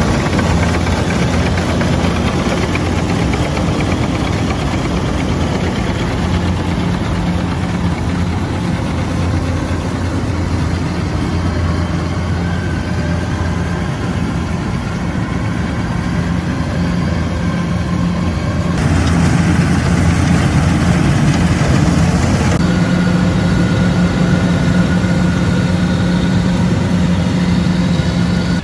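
Kubota rice harvester's diesel engine running steadily under load, a constant low hum. About two-thirds of the way in it grows louder, with a hiss over it for a few seconds.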